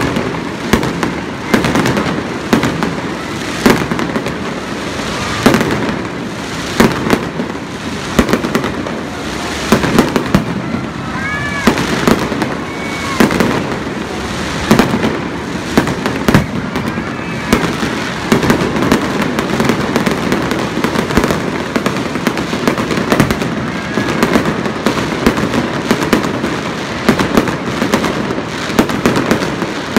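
Fireworks display going off without a break: a rapid run of sharp bangs and dense crackling from bursting aerial shells and spark fountains.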